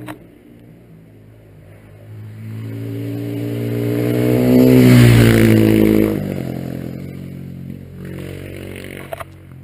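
Motorcycle engine approaching at speed and passing close by, loudest about five seconds in; its pitch drops as it goes past, then it fades away.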